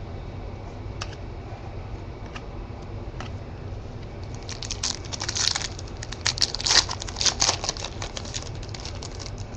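Trading-card pack wrapper being handled: a few light clicks, then about halfway in a dense run of crinkling and crackling that lasts several seconds as the wrapper is worked open.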